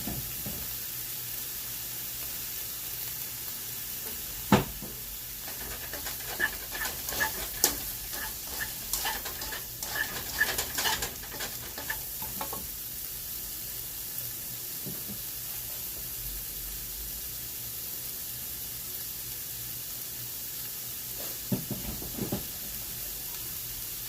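Food sizzling steadily in a frying pan. There is a sharp knock about four and a half seconds in, a run of clicks and rattles between about six and twelve seconds, and a few more knocks near the end.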